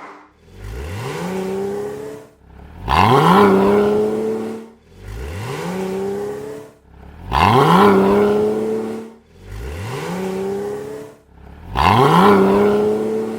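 Porsche Cayman 987.2 flat-six exhaust in a series of short pull-aways, each rising quickly in pitch and then holding steady as the car moves off. There are six passages with short breaks between them, every other one louder, alternating between the stock exhaust and a catless Carnewal GT cat-back exhaust.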